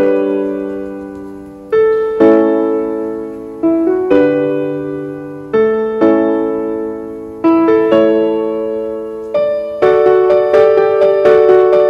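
Background piano music: slow chords struck about every two seconds, each fading away, with quicker notes coming in near the end.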